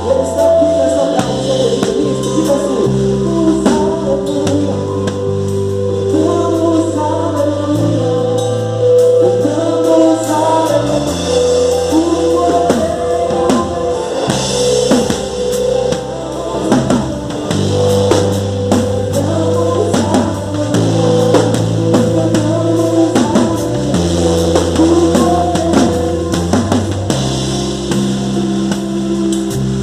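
Live gospel band music: a drum kit keeps a steady beat over a bass line that moves between held notes every couple of seconds, with melodic lines above.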